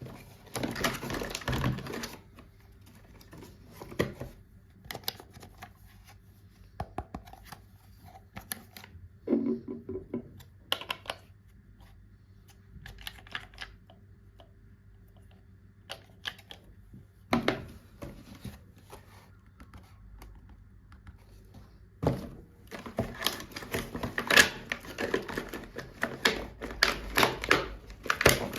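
Hands handling plastic toys and their packaging: quick clicks, taps and rustles in bursts, a dense flurry at the start and another over the last six seconds, with scattered single clicks between.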